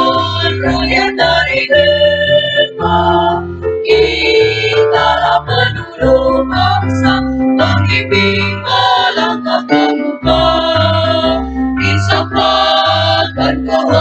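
Choir singing with instrumental accompaniment and a strong, steady bass line.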